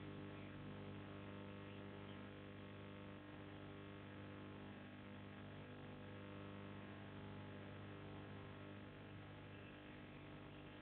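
Faint, steady electrical hum with a low hiss, unchanging throughout; no other distinct sound.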